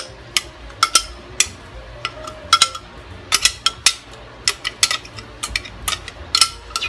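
Irregular sharp clinks and scrapes, a few a second, some ringing briefly: a spoon knocking against a glass blender jar as thick blended black-bean sauce is scraped out of it.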